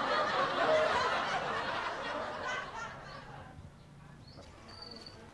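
Laughter fading away over the first three seconds or so, leaving only faint background.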